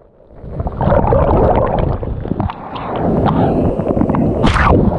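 Small surf waves washing up the sand at the water's edge, the rush swelling twice, with a sharp splash about four and a half seconds in, and wind buffeting the microphone.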